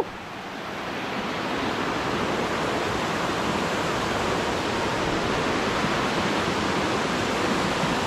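Steady rush of falling water, a stream cascading over rocks.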